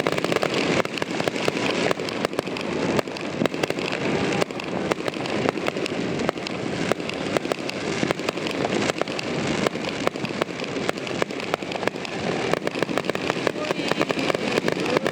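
Fireworks going off in quick succession: a dense, unbroken crackle of many small pops and bangs.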